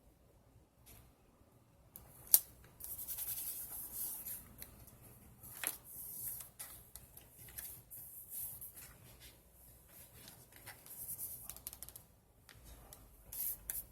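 Paper being handled and shuffled, rustling and sliding in short stretches, after a quiet start. Two sharp clicks stand out, one about two seconds in and another a few seconds later.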